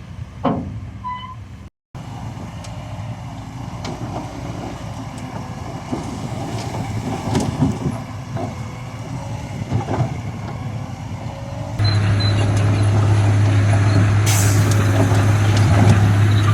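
Heavy diesel construction machinery running, with scattered metallic clanks. About two-thirds of the way in, a louder, steady engine drone sets in, and a short high hiss follows soon after.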